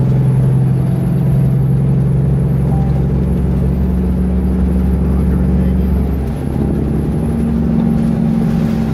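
Highway driving noise: a steady low engine hum over tyre and road noise, with the hum shifting in pitch about six seconds in.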